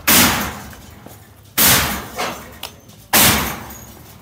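Heavy blows of a long-handled demolition tool striking concrete: three loud ringing strikes about a second and a half apart, with a couple of lighter knocks between them.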